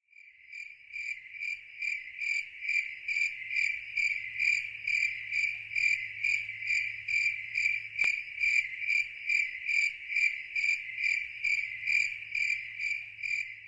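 Insect chirping steadily, a regular string of high chirps a little over two a second, with a faint low hum underneath.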